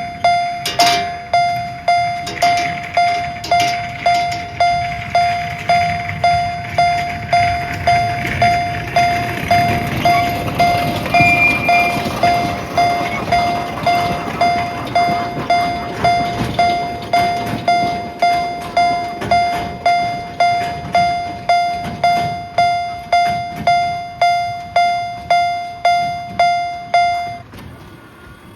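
Japanese level-crossing warning bell ringing its repeated clanging tone, about three strokes every two seconds, each dying away, then cutting off suddenly near the end. A small train rumbles past through the middle.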